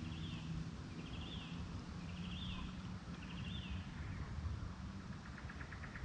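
An animal calling outdoors: four high notes, each rising then falling, about one a second. About five seconds in, a fast run of short clicking pulses starts. A steady low rumble sits underneath.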